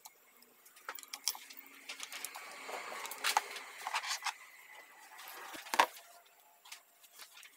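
Light scattered clicks and taps of a 6T40 transmission's plastic solenoid body being pressed with the fingers and handled, with a sharper knock about six seconds in.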